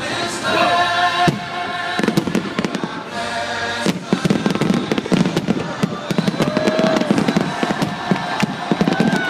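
Fireworks finale barrage: rapid shell bursts thickening into a dense crackle about four seconds in, with music playing underneath.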